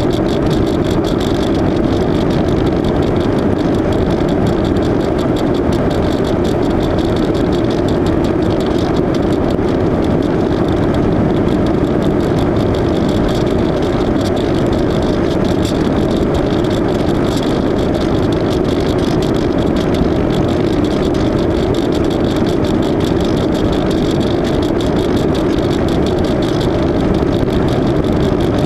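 Electric motor and propeller of an AXN floater jet RC plane running steadily in flight, mixed with loud wind rush.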